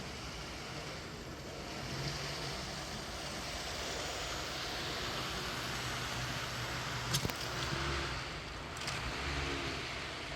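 Model diesel locomotive running on a layout track: a steady rushing noise with a sharp click about seven seconds in and short low hums near the end.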